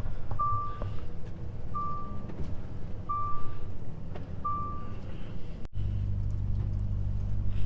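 Truck reversing alarm beeping four times, single-pitch beeps about a second and a half apart, over the low rumble of the diesel engine running. About three-quarters of the way through, the sound changes abruptly to a steadier, stronger engine drone.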